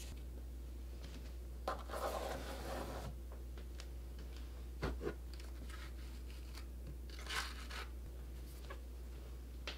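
Small plastic scraper spreading pre-mixed grout over ceramic wall tiles: short scraping strokes about two seconds in and again about seven seconds in, with a sharp knock about five seconds in, over a faint steady low hum.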